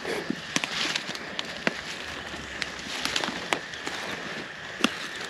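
Footsteps crunching through dry leaf litter: irregular, sharp crackles of leaves breaking underfoot as people walk through hardwood forest.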